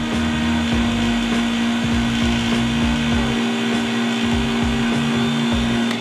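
Laboratory vacuum pump running with a steady hum while it draws a vacuum on a flask of water, keeping the water boiling at room temperature. The hum cuts off right at the end as the pump is switched off.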